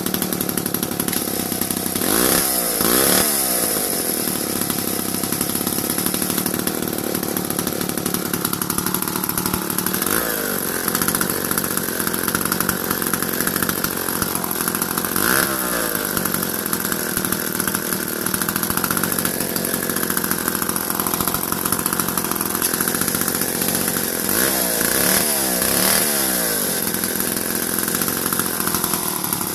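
1957 Jobu Viking chainsaw's single-cylinder two-stroke engine running steadily, with several short throttle revs that rise and fall in pitch: two near the start, one about a third of the way in, one around the middle, and a few near the end.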